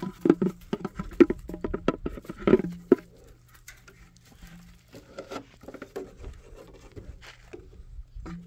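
White domestic goose pecking at a hanging plastic bucket: quick, irregular taps of bill on plastic, densest in the first three seconds, then sparser and softer.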